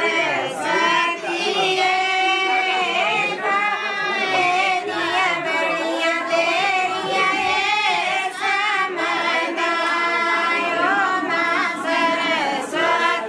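Women singing a Pahari wedding folk song together, with long held notes that waver in pitch.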